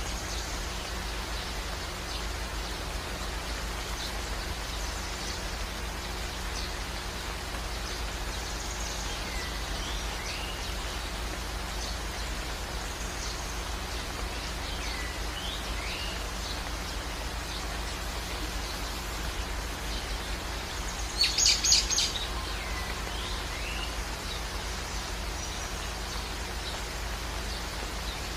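Steady rain-like hiss with birds chirping over it now and then, a quick run of sharp chirps about three quarters of the way through standing out as the loudest moment. A low steady hum lies underneath.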